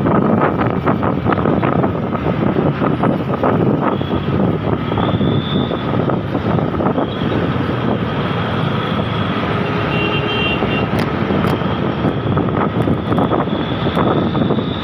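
Wind buffeting the microphone on a moving motorcycle, over the bike's running engine and tyre noise in traffic.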